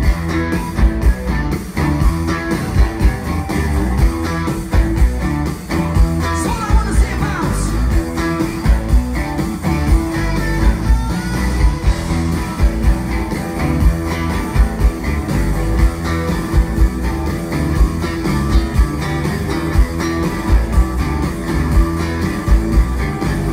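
Live rock band playing an instrumental stretch: a lead electric guitar, a sunburst Les Paul-style, over a steady drum beat and bass.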